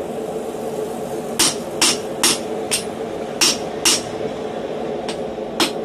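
Hand hammer striking a handled top tool set on red-hot steel: about eight sharp metal-on-metal blows in irregular groups of two, each ringing briefly, over a steady low hum.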